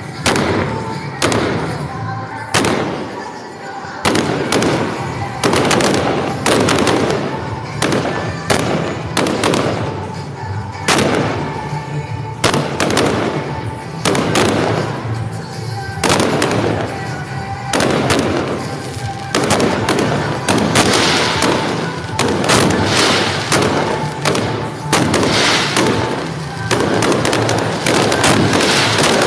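Fireworks display: a run of sharp bangs and crackles from shells bursting, a few per second at first, then crowding into a dense, near-continuous barrage in the second half.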